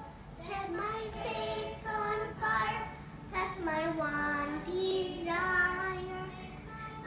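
A young girl singing a Christian worship song, phrase by phrase, holding some notes longer in the second half.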